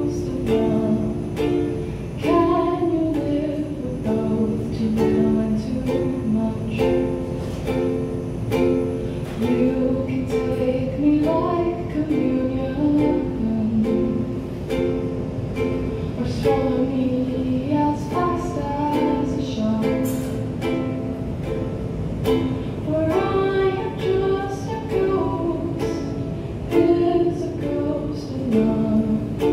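Ukulele strummed in a steady rhythm under a sung melody, a live acoustic song performance.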